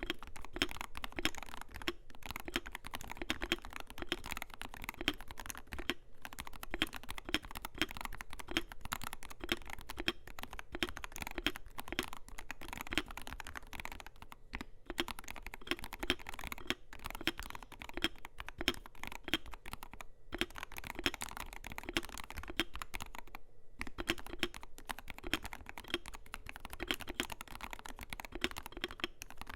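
Continuous fast typing on a Wooting 80HE keyboard with a zinc alloy case, polycarbonate plate, Wooting Lekker L60 v2 magnetic Hall-effect switches and OEM PBT doubleshot keycaps: a dense run of keystroke clacks with a few brief pauses.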